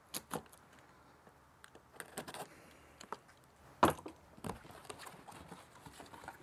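A cardboard box being opened with a box cutter: scattered faint scrapes and taps on cardboard, with one sharper knock a little under four seconds in, and the flaps being folded back near the end.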